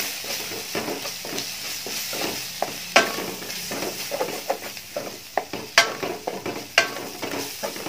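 Onion-tomato masala sizzling in coconut oil in a stainless steel pan while being stirred, with constant scraping of the spatula and a few sharp knocks of it against the pan.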